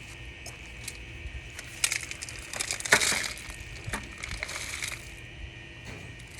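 Dry kindling sticks and pine cones snapping and crackling in small irregular clicks, with a louder crack about three seconds in.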